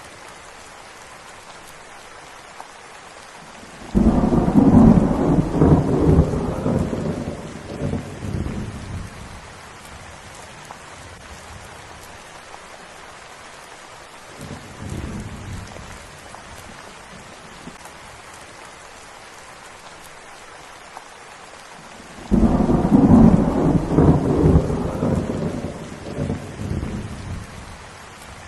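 Steady rain falling, broken by two loud claps of thunder, one about four seconds in and one past the twenty-second mark, each rolling off over several seconds, with a fainter rumble of thunder in between.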